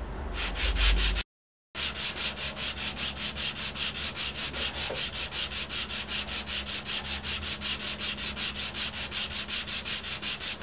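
A small wooden finger brace rubbed back and forth on sandpaper in a radius dish, in quick, even strokes about five a second, truing its glue surface to the curve of the guitar top. There is a brief dropout about a second in.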